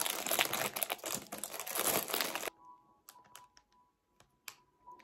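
Clear plastic wrapper crinkling as it is pulled off a chocolate muffin, stopping abruptly about two and a half seconds in, followed by a few faint taps.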